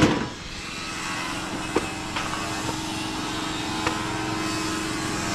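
A steady engine drone with a constant low hum, plus a few faint clicks.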